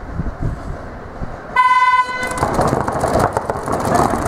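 Electronic start horn sounding one steady, buzzing note for just over half a second, signalling the start of the paintball point. It is followed by a loud din of rapid sharp pops from paintball markers firing.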